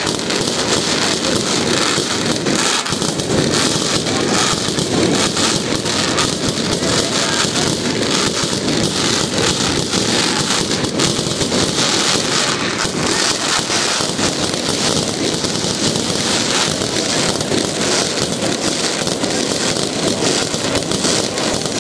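Fireworks display in a dense, unbroken barrage: rapid overlapping bangs and crackling from aerial bursts and low ground-level fireworks, with no pause.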